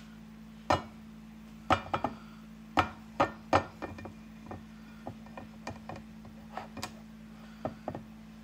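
An upturned ceramic mixing bowl knocked and tapped over a glass loaf dish to shake out thick brownie batter: a run of sharp, irregular knocks, the hardest in the first few seconds, then lighter taps.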